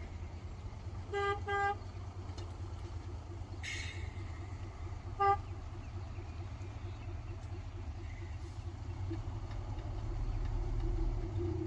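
A vehicle horn gives two short toots in quick succession about a second in, then one more a few seconds later. Under it a heavy engine runs steadily with a low rumble that grows louder near the end, and a brief hiss sounds between the toots.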